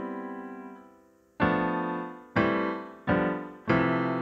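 GarageBand's grand piano software instrument, played from a MIDI keyboard through its piano compressor and EQ presets. A held chord fades away, then four chords are struck in quick succession, each left to ring and decay.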